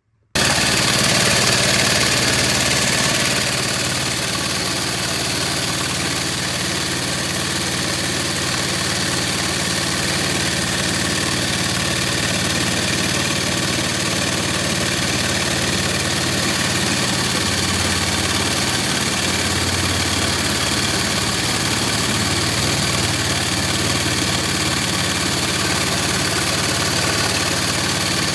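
Harbor Freight Predator 459cc single-cylinder engine, governor removed, running steadily as it drives the boat's chain-driven jet. It cuts in abruptly just after the start and is a little louder for the first three seconds before settling.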